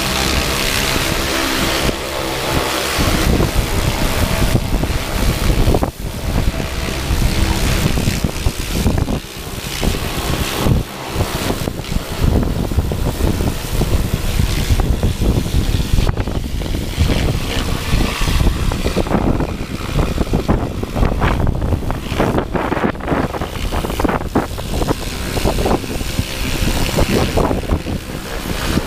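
Pressure washer jet blasting dirt off a mini excavator's rubber tracks and undercarriage: a loud, steady spray hiss, with wind buffeting the microphone.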